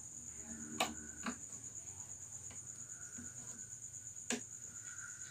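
Two sharp clicks and a few lighter taps from hands working the guitar's strings and tuning pegs at the headstock, over a steady high trill of crickets.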